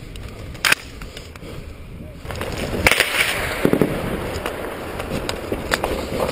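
A single sharp crack a little under a second in. From about two seconds in, a steady noise sets in, with a run of irregular cracks and knocks over it.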